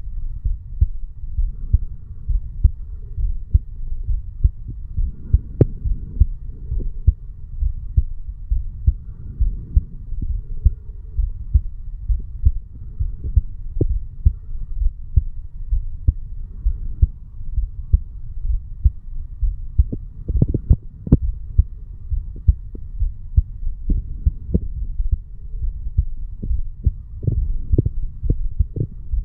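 An adult man's heartbeat picked up at the chest over the mitral (bicuspid) valve area: a steady run of low, dull lub-dub thuds. A few sharper knocks cut through, about a fifth of the way in and again around two-thirds through.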